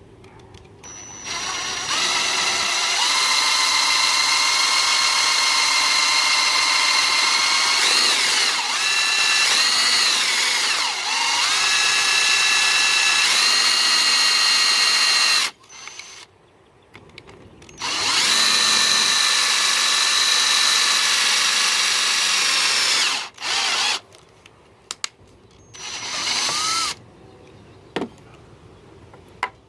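Electric drill running while drilling a hole through a metal flat bar, with a steady high-pitched whine whose pitch wavers as the bit bites. It runs in three spells: a long one, a shorter one after a pause of about two seconds, and a brief final burst near the end.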